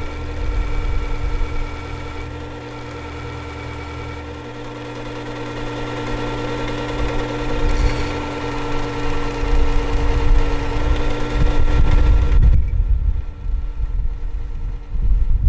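Work Sharp powered sharpener running with a steady motor hum while a chisel edge is worked on its spinning abrasive wheel. The higher part of the hum drops away near the end, leaving a low rumble.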